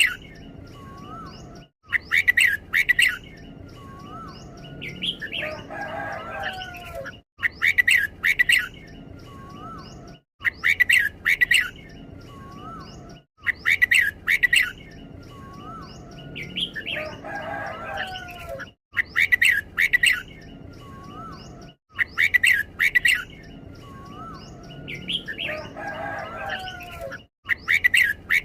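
Red-whiskered bulbul singing: loud, quick bursts of song repeating every few seconds, with softer twittering between them.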